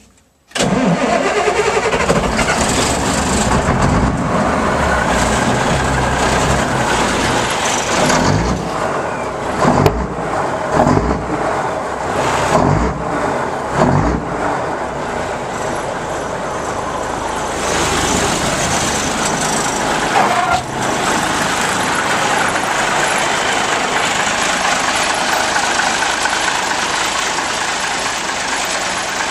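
1959 Mack B61T's Thermodyne inline-six diesel starting from cold and running, after two years of sitting. It swells louder several times between about 8 and 14 seconds in, then runs steadily.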